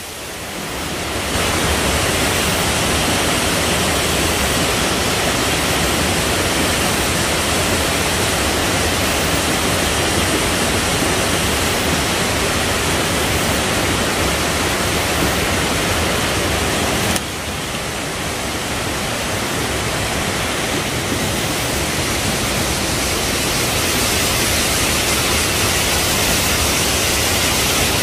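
Steady loud rush of falling water, a waterfall close by. The level drops suddenly a little past halfway, then holds steady.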